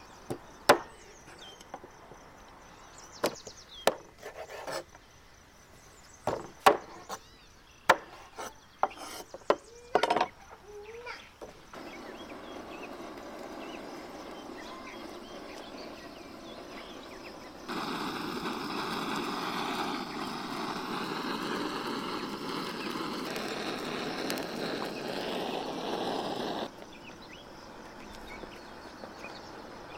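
Chopping on wood: about a dozen irregularly spaced sharp knocks over the first ten seconds. Then a steady hissing noise takes over, grows louder partway through and stops suddenly.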